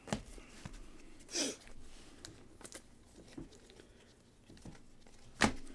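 Trading cards handled with gloved hands: faint rustles and clicks as cards are flipped through a stack, with a louder tap near the end.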